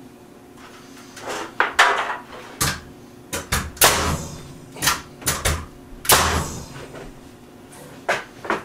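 Pneumatic nail gun firing nails through a wooden frame into the ceiling joists: a dozen or so sharp shots, irregularly spaced, some with a short trailing hiss.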